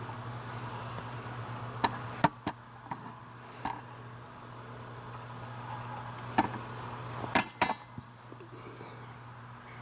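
Light metal clicks and knocks from handling a dial indicator and its stand on a milling machine table, about eight in all, clustered about two seconds in and again near the end, over a steady low shop hum.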